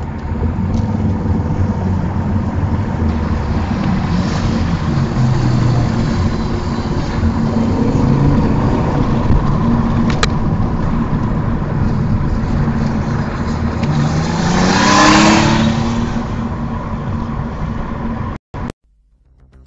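Car engine and road noise from inside the cabin, picked up by a dash cam's microphone while driving. About three-quarters of the way through, the engine note rises in pitch and swells louder as the car accelerates; the sound cuts off abruptly near the end.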